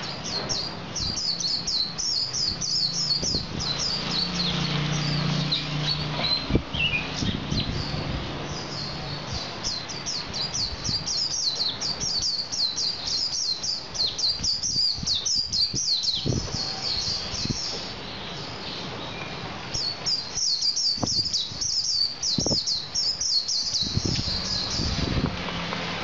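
Male white-eye (pleci) singing in rapid, high twittering runs of chirps, almost without a break, with a short lull about two-thirds of the way through before the song picks up again. A few soft knocks sound underneath.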